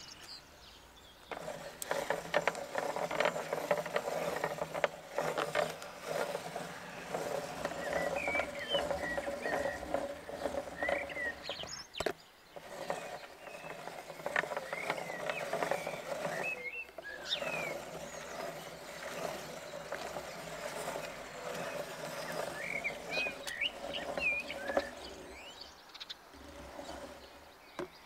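Hand-cranked meat grinder turning, its auger grinding chocolate-coated ice cream bars. The noise is dense and steady, with two short breaks, and stops a few seconds before the end. Birds chirp throughout.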